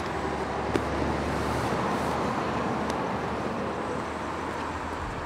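City street traffic noise: a passing vehicle swells to its loudest about two seconds in and fades, over a low steady hum, with a few faint clicks.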